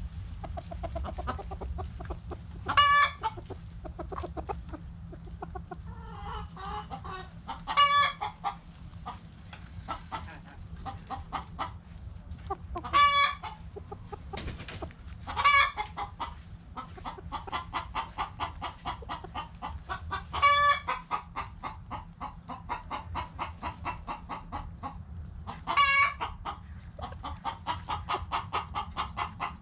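Backyard chickens clucking in quick, rapid runs, broken six times by a loud, short, high call that stands out above the clucking, every few seconds.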